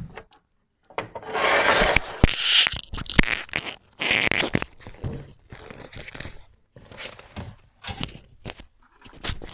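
Kitchen handling noises at a stainless steel counter: a dull thump as a plate is set down, then irregular bursts of rustling and scraping with sharp little clicks of utensils and dishes as a dessert is plated.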